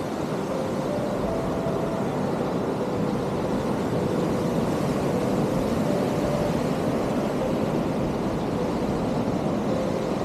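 Steady roar of ocean surf and wind, with no break in it, and faint short tones now and then.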